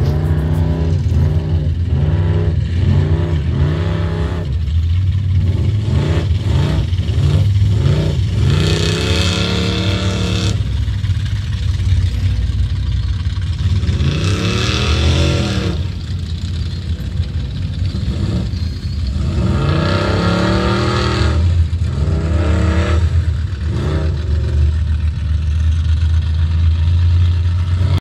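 Lifted 4x4 mud truck's engine revving over and over as it drives through a mud pit, the pitch rising and falling with each blip of the throttle. It gives three long, hard revs, near the middle, about halfway through and around two-thirds of the way in, over a steady low rumble.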